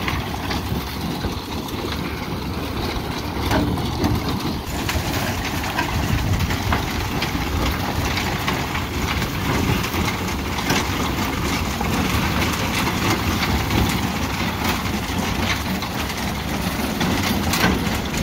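An engine running steadily, with a low rumble and light clattering throughout.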